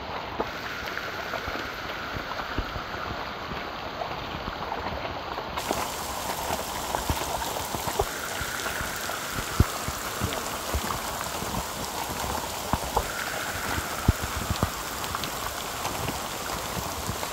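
Steady rain falling, with many individual drops ticking close by.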